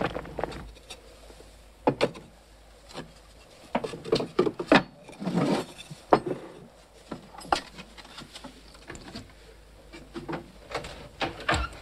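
Tableware handled on a wooden table: scattered knocks and clinks of an earthenware bowl, a pot and its lid set down, and a spoon in the bowl.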